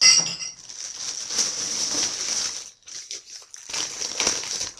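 Crinkling and rustling of wrapping being handled, in two bouts with a short pause between.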